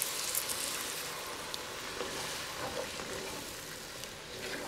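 Beef stock hitting a hot cast-iron Dutch oven of fried onions and tomato paste, sizzling steadily as the pan is deglazed, while a spatula stirs it through.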